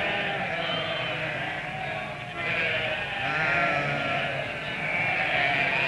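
A large mixed flock of sheep and goats bleating, with many calls overlapping throughout.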